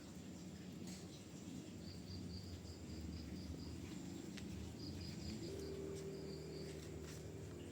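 Cricket chirping in short rhythmic trains over a faint low hum; about five and a half seconds in, a steady low hum joins.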